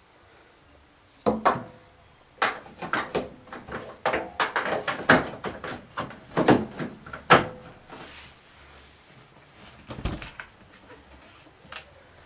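Plastic lint-trap cover of an Electrolux dryer knocking and clattering as it is fitted back into its housing at the drum opening: a string of short knocks and scrapes for several seconds, then one more knock about ten seconds in.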